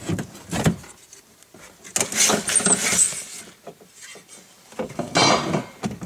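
Clicks, knocks and scraping of hands and parts being worked inside a car door, as the loosened window run channel is slid out of the way. There are a few sharp clicks at the start, and longer scraping rustles about two seconds in and again near the end.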